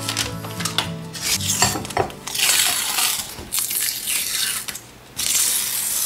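Protective paper backing being peeled off a clear plastic sheet, heard as three long crackling rips starting about two seconds in, after a few light taps and clicks of handling.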